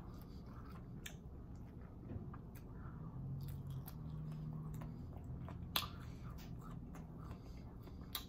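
Close-up mouth sounds of a person chewing food, with soft wet clicks and smacks, and a low steady hum through the middle stretch.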